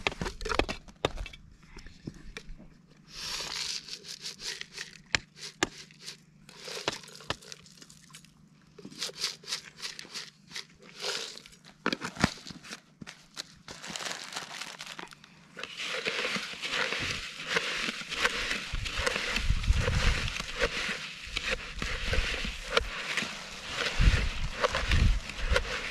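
Plastic clicking and crinkling as a plastic jar is handled and opened. From a little past halfway, wind buffets the microphone with a steady rush and low rumbles.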